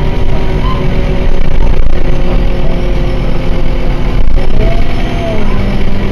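Scania K230UB bus running, its Scania DC9 five-cylinder diesel heard from inside the passenger cabin as a loud, steady low rumble. A brief rising-and-falling tone sounds about five seconds in.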